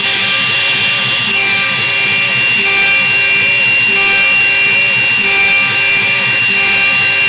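Mini CNC router spindle driving an H3b end mill through carbon-steel plate: a steady high whine with a pulsing underneath about three times a second. About a second and a half in, the whine drops a little in pitch.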